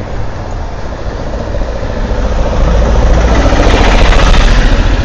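A motor vehicle's engine close by on the road, a low pulsing rumble that grows louder over the first four seconds and eases slightly near the end.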